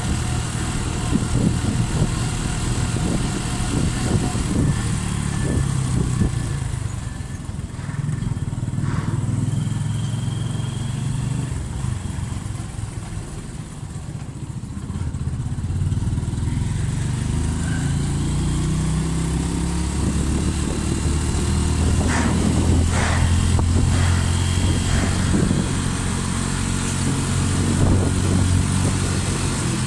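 Honda Splendor NXG 100 cc single-cylinder four-stroke motorcycle engine running on the move. It eases off and drops in pitch about halfway through, then climbs in pitch again as it speeds back up.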